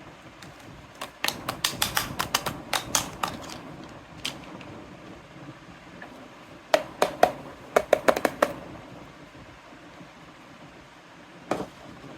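Toy kitchen set pieces being handled, clicking and tapping together in two quick runs of sharp clicks, with a single knock near the end.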